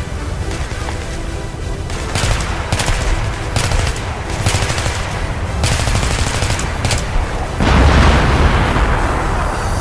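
Loud electronic music soundtrack overlaid with a series of sharp, irregular gunfire-like bursts from about two seconds in, then a long noisy blast about three-quarters of the way through.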